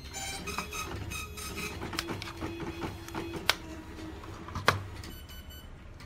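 Plastic RC transmitter and circuit board being handled: light rattling and knocking, with two sharp clicks about three and a half and almost five seconds in, the loudest sounds. Short faint tonal notes sound in the first second and a half and again near the five-second mark.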